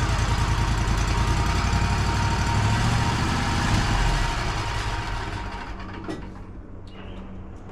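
Wood-Mizer LT35 sawmill engine running steadily under power, then easing off about four to five seconds in to a much quieter idle.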